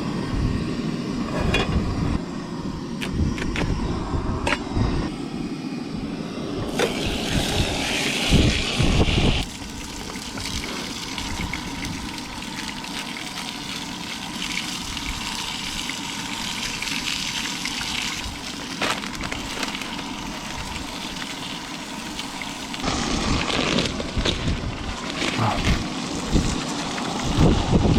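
Strong wind buffeting the microphone in gusts, heaviest at the start and again near the end. In between, a steady, even hiss of water heating in a pot on a camp stove.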